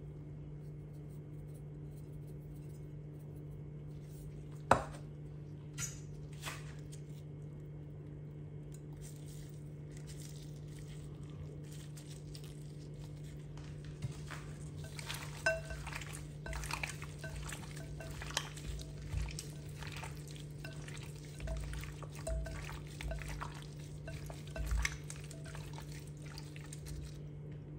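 Gloved hands mixing raw chicken pieces in a glass bowl: a sharp tap about five seconds in, then, from about halfway on, a run of soft wet squelches and light knocks against the bowl, over a steady low hum.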